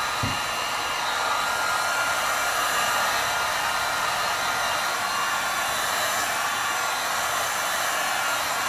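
Electric hot air gun on its low setting, blowing steadily: an even rush of air with a faint steady whine. A brief low knock just after the start.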